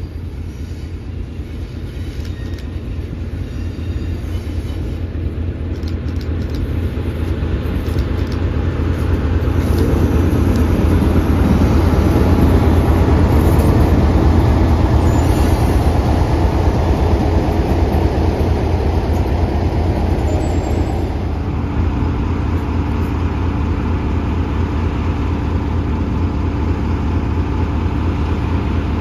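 BR Class 33 diesel locomotive with its Sulzer eight-cylinder engine running as it draws a train of coaches slowly past. It is loudest about halfway through as the locomotive comes close, then settles to a steady idle as it stands alongside.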